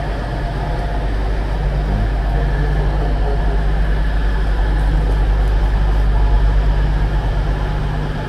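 Steady low rumble of idling diesel trains, swelling a little and dropping away abruptly near the end.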